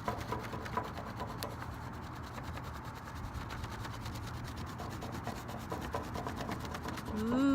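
Crayon rubbed back and forth over paper laid on a rock, a steady rubbing that picks up the rock's texture.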